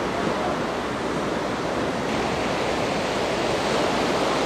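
Surf washing onto a beach: a steady rushing noise that swells and eases slowly.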